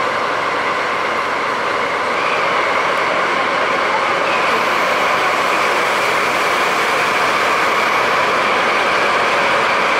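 DD51 diesel locomotive running under power as it pulls slowly away with a train of coaches, a steady engine drone that grows a little louder about two seconds in.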